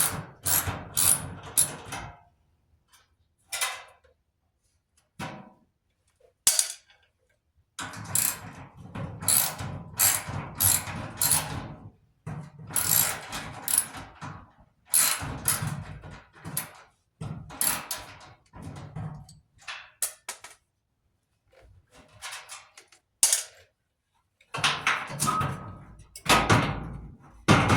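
Hand ratchet wrench clicking in runs of quick strokes, working bolts loose on a clothes dryer's panel, with short pauses between runs.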